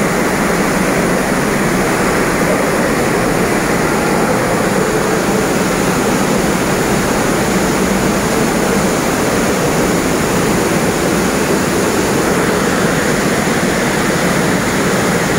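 Swollen river in flood, its floodwater rushing past and over paved ground in a loud, steady, unbroken rush. The river is in spate after a cloudburst upstream.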